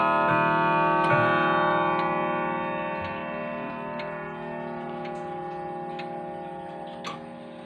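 Junghans grandfather clock's chimes ringing out and slowly fading after a chime, over the clock's steady tick about once a second.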